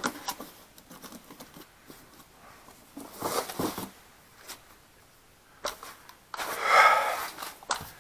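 Handling noise from a cardboard box being closed and pushed aside and a chainsaw being picked up: scattered clicks and knocks, with a loud rustling scrape about a second long roughly three-quarters of the way through.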